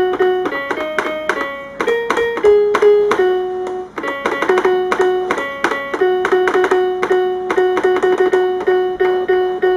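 Electronic piano keys of a VTech Discovery Nursery Rhyme Farm toy being pressed one at a time, each press giving a short, clean tone, picking out the notes of a nursery-rhyme melody. The second half has one note repeated many times over.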